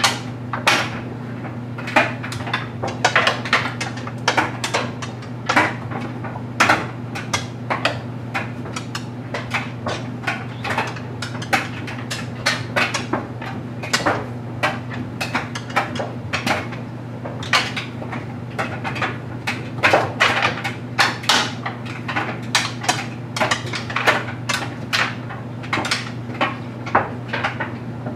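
LG Mega Capacity clothes dryer running with a steady motor hum, its drum tumbling a load of stuffed animals that knock and clatter irregularly several times a second.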